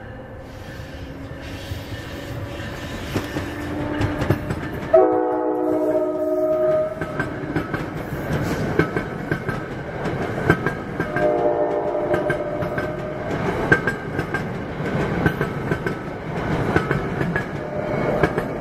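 NJ Transit commuter train of multilevel coaches passing close by, growing louder as it approaches. Its locomotive horn sounds a chord about five seconds in and again about six seconds later, each blast about two seconds long, and a third starts near the end. The coach wheels click over rail joints.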